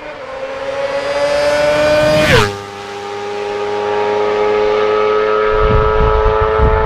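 Yamaha R6's high-revving inline-four sportbike engine passing at speed: the note climbs as it approaches, then drops sharply in pitch as it goes by about two seconds in. A steady high engine note then builds in loudness again.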